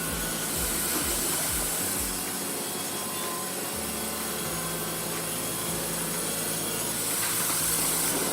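Baker band sawmill running, its saw cutting through wood with a steady mechanical hum.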